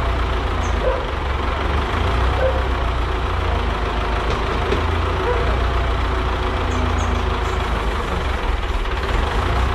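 Farm tractor's diesel engine idling steadily, a constant low rumble, with a few faint clinks of work in the engine bay.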